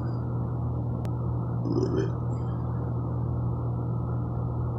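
Steady low hum under a refrigerated cardboard dough can being handled: a sharp click about a second in, then a short crinkle of its paper label under the fingers around two seconds in. The can has not yet popped.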